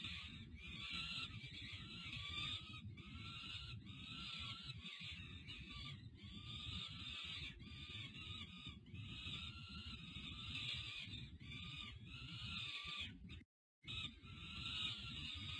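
Peregrine falcon nestlings giving repeated harsh begging calls as the adult feeds them, over a steady low background rumble. The sound cuts out for a moment near the end.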